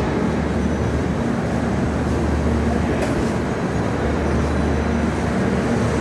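Passenger train coaches rolling past along a station platform: a steady rumble of wheels on the rails, with a brief hiss about halfway through.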